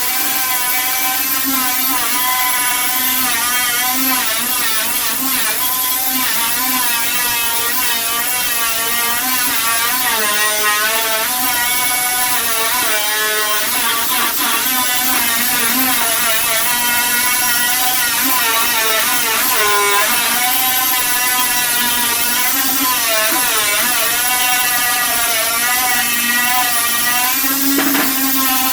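A power tool running continuously, its whine wavering up and down in pitch as the load on it changes.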